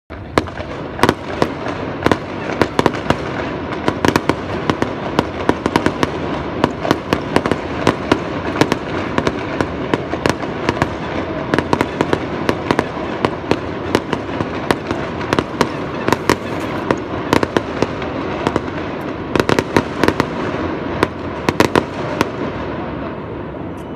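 Fireworks going off in a continuous dense crackle with many sharp cracks and bangs, dying down near the end.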